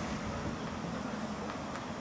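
Keihan Ishiyama-Sakamoto Line train approaching, a steady low rumble with rolling noise.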